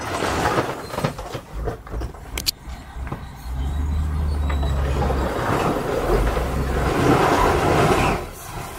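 Heavy dump truck engines running while a raised tipper body empties its load of stone, the rocks sliding out and tumbling onto the pile with a rumble that is loudest near the end. A short sharp clank comes about two and a half seconds in.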